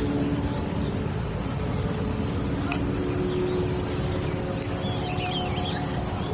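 Outdoor field ambience dominated by a steady high-pitched insect drone, with a few short bird chirps about five seconds in.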